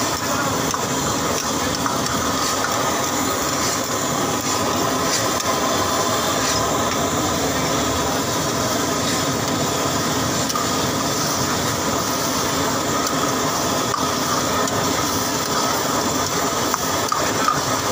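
Prawn karahi sizzling and bubbling hard in a steel wok over a gas burner, a steady cooking noise, with a ladle stirring and scraping the pan.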